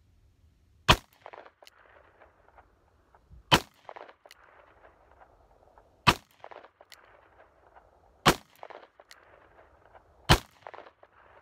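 Five shots from a Taurus Tracker .44 Magnum revolver, fired one at a time about two to two and a half seconds apart, each followed by an echo.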